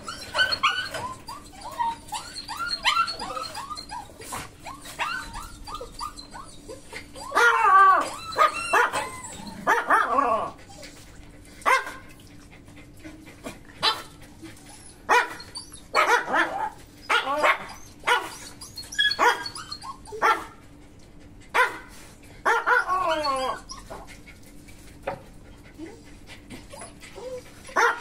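Dogs barking and yipping in short, irregular bursts as they wrestle in rough play. The calls come quick and high in the first few seconds and are loudest about eight seconds in.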